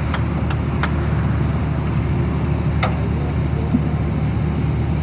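Drilling rig's engine running steadily with a deep, even rumble, and a few sharp metallic clicks scattered over it.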